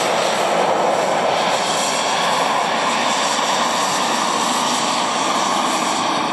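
Small model jet turbine engine of a radio-controlled F-2A scale jet running in flight: a steady rushing roar with a thin high whine above it, edging slightly higher about two seconds in.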